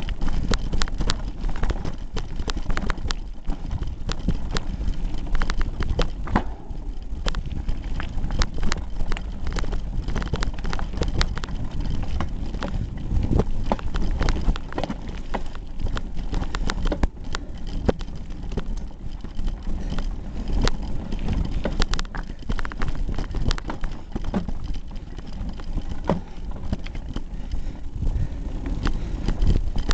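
Hardtail mountain bike rattling over a rough gravel trail, heard through a camera taped to its handlebars: a constant low rumble with many irregular sharp clicks and knocks as the bike and bars jolt.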